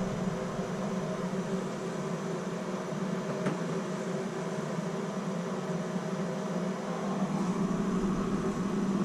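Plumber's soldering torch flame hissing steadily while heating a brass shower valve body for soldering, with one faint click partway through.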